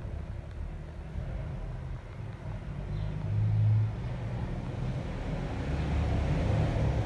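Low background rumble, growing somewhat louder in the second half.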